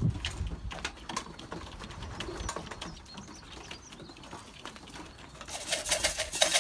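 Young racing pigeons cooing around the loft, with scattered light clicks and a dense burst of rapid clattering about six seconds in.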